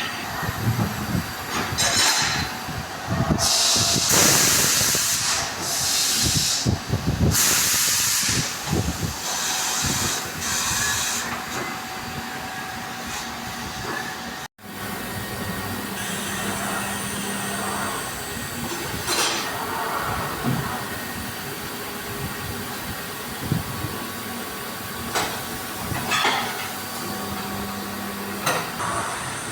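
Compressed air hissing from a tyre-shop air line in about five short, loud blasts, as tyres are being changed. After a brief dropout, steady workshop noise with a few sharp clacks and a short low hum now and then.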